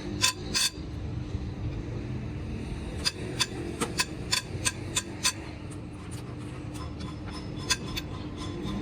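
Sharp metallic clinks and taps of tools or metal parts being handled on a diesel engine during its rebuild: two near the start, then a run of about three a second from about three seconds in, thinning out later, over a steady low hum.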